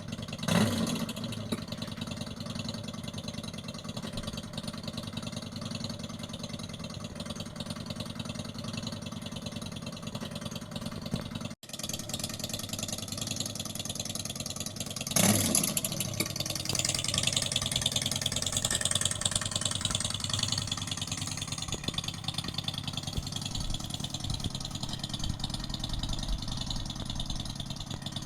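Simulated motorcycle engine sound played by an electric scooter's sound-effect speaker, idling steadily, with a short rev blip about half a second in and another about fifteen seconds in, after which it runs louder. The sound cuts out for an instant a little before halfway.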